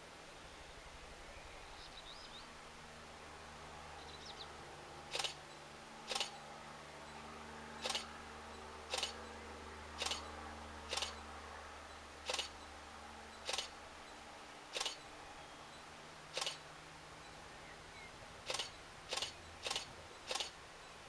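Faint low drone of a distant crop-spraying helicopter working over vineyards. From about five seconds in, a series of about fourteen loud, sharp clicks, roughly a second apart and quicker in the last few, stands out over it.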